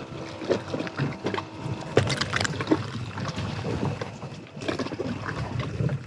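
Irregular knocks, clicks and clatter of handling on board a small fishing boat, over a steady low noise.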